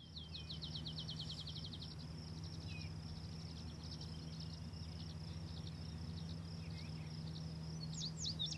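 Birds singing: a fast trill of repeated high chirps at first, then varied song, with louder swooping notes near the end, over a steady low hum.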